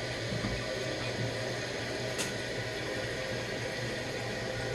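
Toilet tank refilling through a newly installed fill valve: a steady hiss of running water with a low, even hum beneath it, and one faint click about two seconds in.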